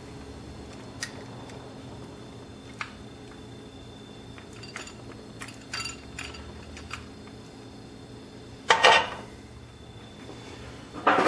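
Light metallic clicks and clinks of steel rocker arms being worked loose and lifted off a Cummins 5.9 24-valve cylinder head, with a louder metal clatter a little under nine seconds in and another near the end.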